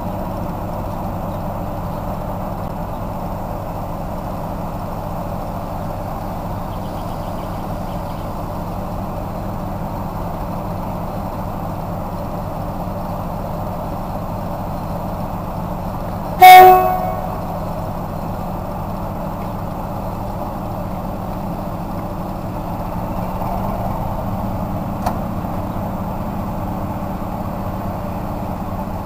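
SP42 diesel locomotive idling steadily, with one short, loud blast of its horn about halfway through, the signal before it moves off; the engine note rises slightly near the end as the locomotive pulls away.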